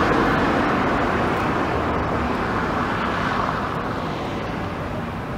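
Road traffic noise: a passing vehicle's road noise, loudest at the start and fading away steadily.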